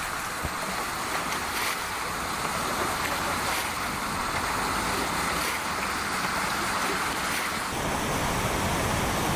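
Steady rushing of floodwater, with wind noise on the microphone.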